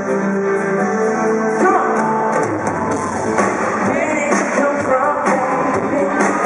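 Live pop band music from an arena stage, with held keyboard chords at first, then drums and the full band coming in about a second and a half in, with singing over them.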